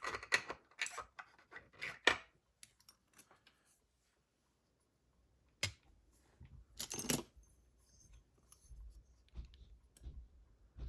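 Small metal lock parts of a Corbin Master Ring lock cylinder clicking and clinking as it is handled and taken apart. There is a cluster of light clicks in the first two seconds, a sharp click about six seconds in, and a short metallic rattle just after seven seconds.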